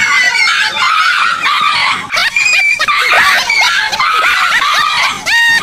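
A frightened dog yelping over and over in rapid, high-pitched, overlapping cries.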